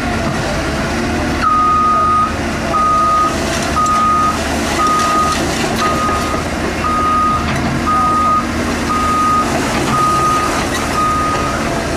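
Caterpillar 319D LN excavator's travel alarm beeping, one steady tone about once a second, starting about a second and a half in with a longer first beep, over the diesel engine running: the sign that the machine is travelling on its tracks.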